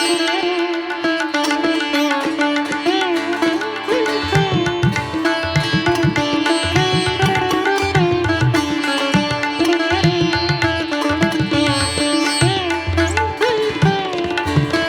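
Background music: a plucked-string melody with bending notes over a steady drone, with low drum beats coming in about four seconds in.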